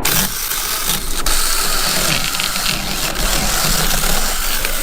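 Small cordless chainsaw cutting on through the rest of a log, a steady noisy rush of chain through wood, over the low steady hum of an idling engine.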